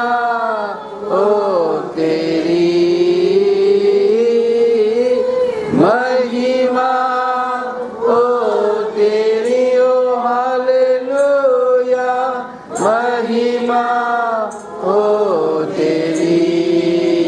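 Voices singing a slow, chant-like worship melody, with long held notes that rise and fall and a few short breaks for breath.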